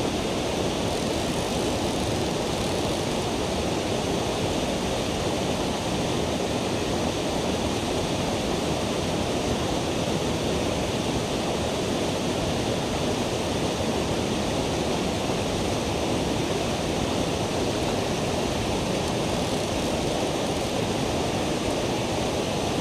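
Steady rush of the Tellico River's flowing water, an even noise with no breaks.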